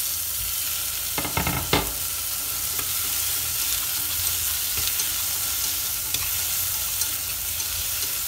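Tomato wedges sizzling as they fry in hot lard with minced shallots and garlic in a stainless steel pot, with a steady hiss and the sounds of stirring. A few knocks come about a second in.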